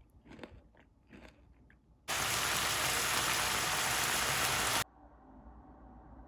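A few soft crunching bites of food, then a loud, steady hiss for nearly three seconds that starts and stops abruptly.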